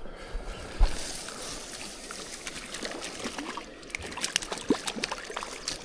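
River water trickling and sloshing while a hooked trout is played on a fly rod, with a single knock about a second in and a run of light clicks in the last two seconds.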